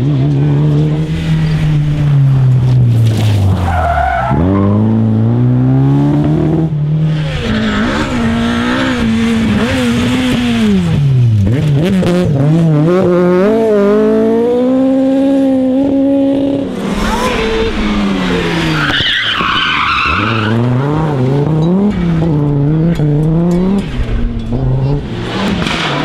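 Rally car engines at full throttle, several cars in turn, the engine note climbing and dropping again and again as they rev out, shift and lift off. Tyres skid and squeal briefly a few times.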